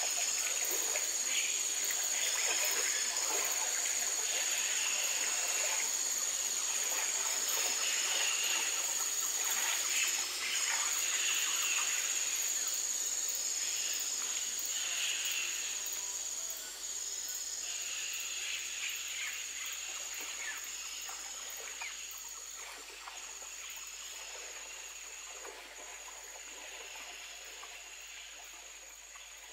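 Nature ambience: a steady high insect drone with birds calling over it, fading out gradually through the second half.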